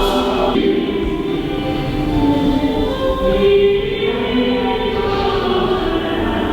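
Background music with sustained choir-like singing voices, held notes changing every second or so.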